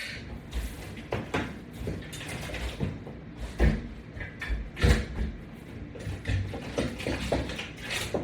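Flat resistance bands on a latch bar and hand grips being worked through repeated pull-ins: irregular knocks, clacks and creaks of the equipment, with a couple of heavier thumps near the middle.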